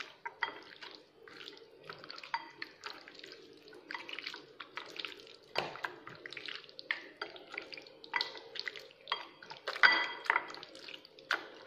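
A hand squishing chicken lollipop pieces through a thick curd and spice marinade in a glass bowl: irregular wet squelches and smacks, a few a second, with sharper clicks. The sound is loudest about ten seconds in.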